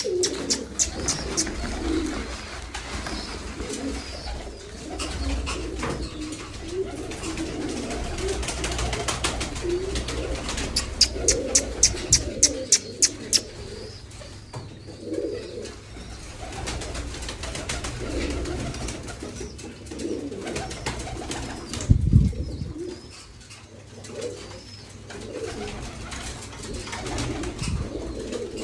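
A flock of domestic pigeons cooing in a loft. Two runs of rapid sharp clicks, near the start and about halfway through, come from birds flapping their wings. A single thump a little after three quarters of the way through.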